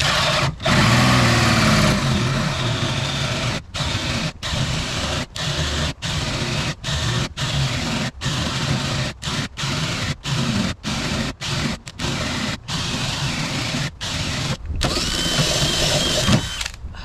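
Power drill cutting a hole in a fiberglass boat deck with a hole saw, run in many short bursts as the trigger is let off and squeezed again. It runs a little steadier and higher near the end as the cut finishes.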